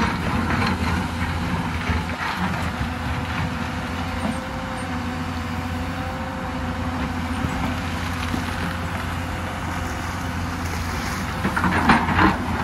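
Hyundai crawler excavator's diesel engine running steadily at working speed, a low hum with a held tone, as the bucket digs into and pushes broken rock and soil. Rocks knock and clatter now and then, most loudly near the end.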